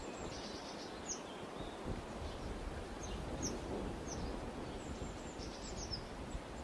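Small birds chirping: short, high, downward-sweeping notes several times and a couple of brief trills, over a steady low outdoor noise.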